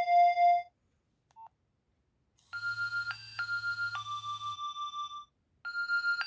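Nokia 2300 mobile phone ringtones: one tune ends on a held note in the first second, then after a short silence a new electronic melody starts about two and a half seconds in, plays a short phrase of notes and begins it again near the end.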